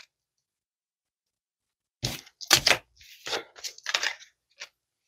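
Tarot cards being handled on a table: a quick run of about half a dozen short papery snaps and rustles, starting about two seconds in.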